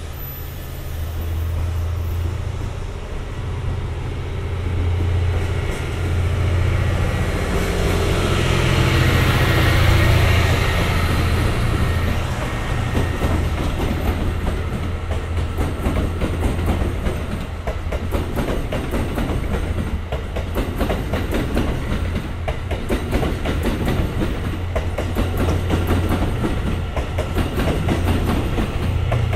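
E001 Train Suite Shikishima passing slowly under its own diesel power. A steady low drone from its diesel generator engines runs beneath wheels clicking over rail joints and points, and the clicking grows dense about halfway through.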